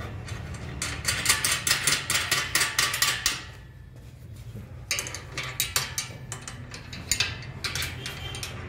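Rapid metallic clicking and clinking in two spells with a short pause between, from a spanner working the bolts on the steel square-tube frame of a multi-station home gym during assembly.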